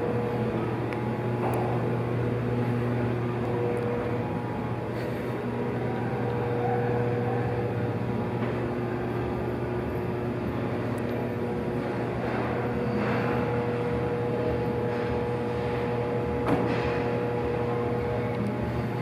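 Steady background hum of a large exhibition hall: a low drone with a faint steady tone above it. A few faint clicks, and one sharper knock near the end.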